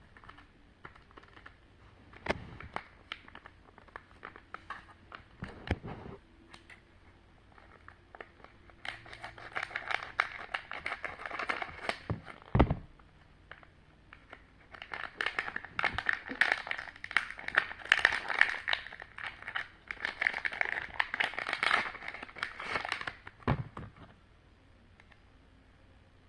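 Plastic candy packaging crinkling and crackling as it is handled and opened, in two long spells of dense crackling, with a few single knocks in between.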